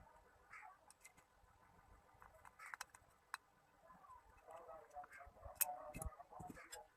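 Faint, scattered small clicks and taps, getting busier in the second half, with one sharper click a little after two-thirds of the way through.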